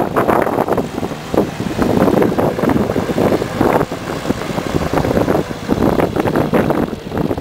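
A World War II jeep driving off-road, its four-cylinder engine running under uneven, gusty bursts of wind and rumble noise.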